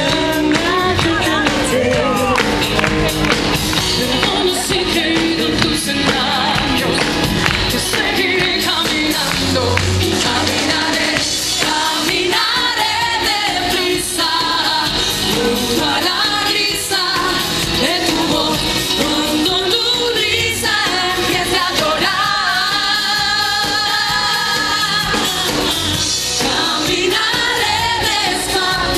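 Live pop song: two women's voices singing a duet over a band with drums.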